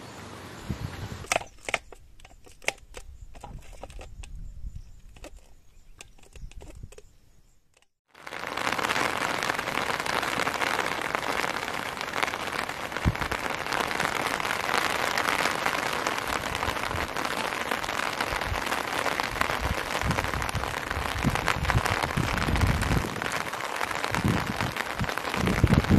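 Scattered sharp crackles and clicks over a quiet background, then, after an abrupt cut about eight seconds in, a steady hiss of rain falling on the river and grass.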